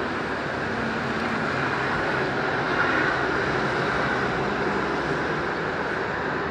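Steady motorway traffic noise: the tyres and engines of lorries and cars passing below, swelling slightly about three seconds in.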